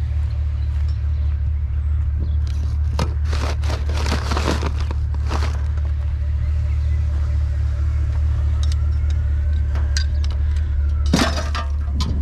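A vehicle engine idling with a steady low rumble, while hard objects are rummaged through with clinks and clatters, busiest from about three to five seconds in and again near the end.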